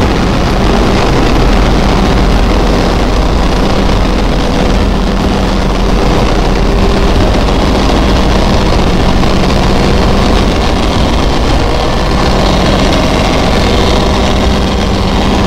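Loud, steady engine-room noise of an oil tanker's main diesel engine running, with low, even hums under a constant mechanical din.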